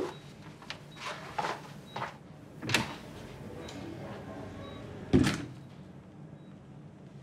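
A few soft footsteps, then a door shutting with a dull thud about five seconds in.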